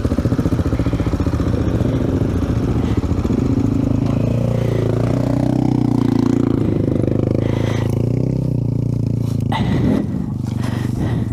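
AJP PR7 single-cylinder motorcycle engine running steadily at idle while the bike lies on its side, with a few knocks and scrapes near the end.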